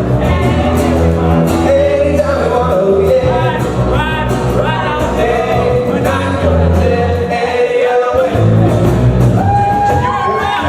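Pop-rock band playing live, a singer holding long notes over bass and drums, heard through the hall's reverberation.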